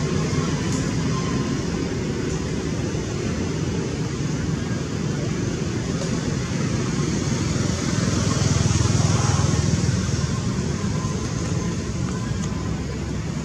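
Road traffic running steadily past, with one vehicle passing louder about two-thirds of the way through.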